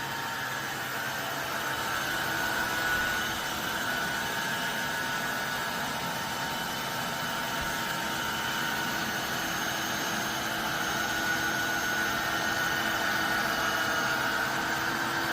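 Tineco iFloor 5 Steam wet-dry vacuum mop running in cleaning mode: a steady motor hum and suction hiss with a faint whine, unchanging throughout.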